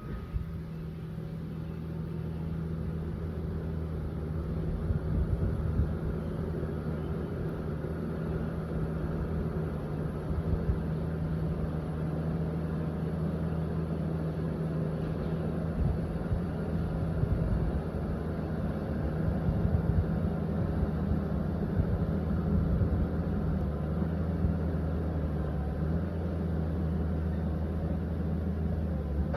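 Liebherr PR 744 crawler dozer's diesel engine running steadily at working revs, its low hum wavering slightly as the load changes.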